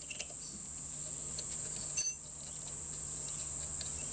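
Steady high-pitched whine in the workshop background, with one short ringing metal clink about two seconds in.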